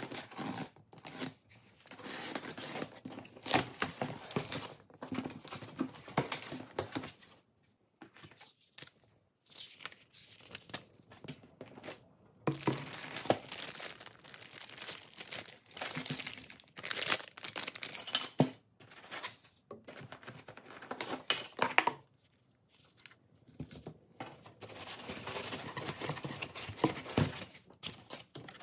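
Cardboard shipping box being opened and unpacked by hand: irregular tearing and rustling of cardboard and tape, crinkling plastic bags and handled foam packing, with scattered knocks and a few short pauses.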